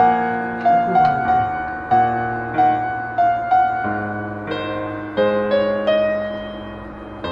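Background music: a slow, gentle piano melody of struck notes that fade away, over held low bass notes.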